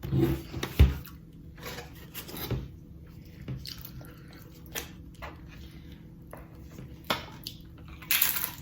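Close-up eating sounds: chewing and wet mouth clicks with scattered small knocks of food and containers, and a short, louder noisy burst near the end.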